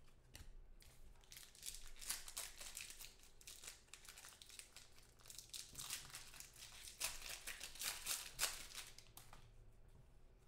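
Foil wrapper of a Prizm football card pack crinkling and tearing as hands open it: a dense run of faint crackles from about a second in, thinning out near the end.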